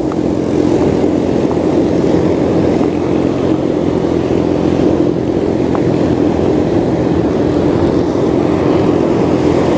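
Loud, steady rumble of breaking surf and wind buffeting the microphone, with a steady low hum underneath.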